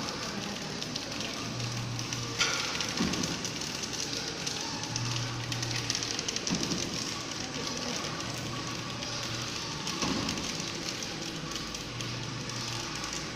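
Horizontal film-wrapping packaging machine running: a steady, dense mechanical clatter of fine rapid ticks, with a low hum that swells about every three and a half seconds as it cycles.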